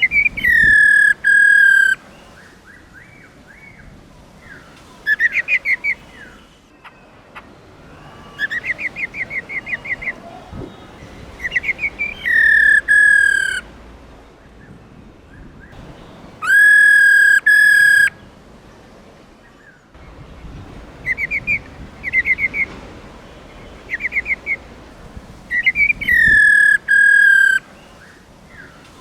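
Female black-throated laughingthrush calling in repeated phrases. Quick runs of short whistled notes alternate with several loud calls that slide down in pitch and hold, with a harsh rattling edge. This is the female 'ro ro' call used to rouse a male into song.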